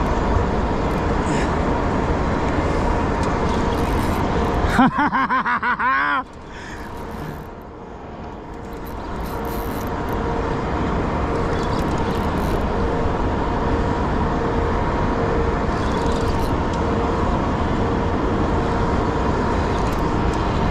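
A boat's motor running steadily. About five seconds in, a loud rapid rattling lasts about a second and a half, then the level drops and slowly builds back up.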